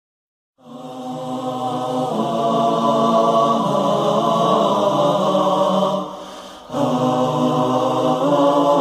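Male a cappella nasyid vocal group singing slow, sustained wordless harmony. It fades in about half a second in, dips briefly just after six seconds, then swells back.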